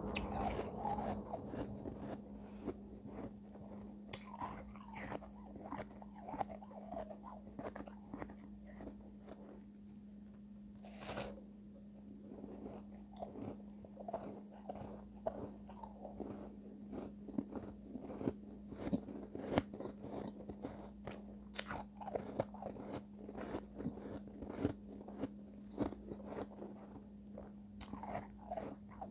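Refrozen shave ice being bitten and chewed close to the microphone: dense, irregular crisp crunches and crackles as the icy chunks break in the mouth. A steady low hum sits underneath.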